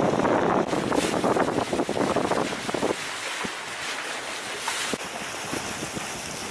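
Wind buffeting the microphone over open water, with water splashing and lapping. The rush is heavy at first and eases about halfway through, leaving lighter splashes and small ticks.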